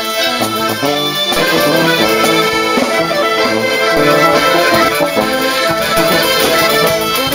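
Street band playing lively traditional music led by accordions, with brass in the ensemble; the sound fills out about a second and a half in.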